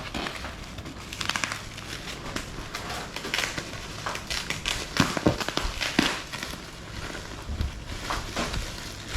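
Parcel packaging being crumpled and torn open by hand: a run of crinkling and crackling, with a few sharper, louder crackles about five to six seconds in.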